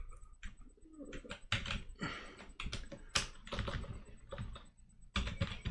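Typing on a computer keyboard: a run of irregular key clicks as a terminal command is typed, with one harder strike about three seconds in.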